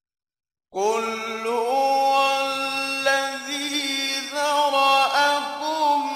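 Silence, then about three-quarters of a second in a man begins chanting the Quran in the slow, melodic mujawwad style, drawing out long held notes with ornamented turns in pitch.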